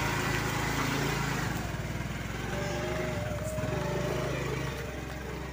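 Small petrol scooter engine running steadily as the scooter rides off.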